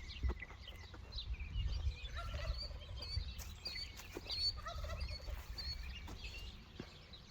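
Turkeys gobbling repeatedly in short calls, over a low steady rumble.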